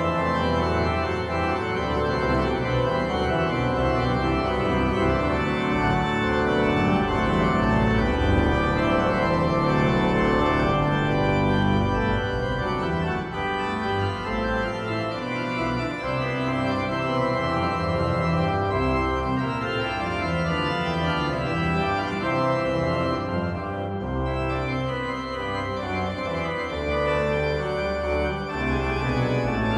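Organ music playing slow, sustained chords that change every second or so.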